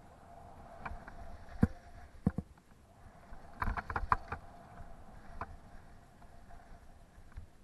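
Skis sliding and turning over snow under a low rumbling hiss, with a faint steady whine. Sharp clicks and knocks break in several times: once a little over a second and a half in, twice just after two seconds, in a quick cluster around four seconds, and once more after five seconds.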